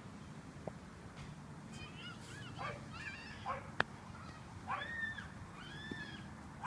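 A run of short, high-pitched animal calls, each rising and then falling in pitch, about one a second in the second half, with a sharp click just before them.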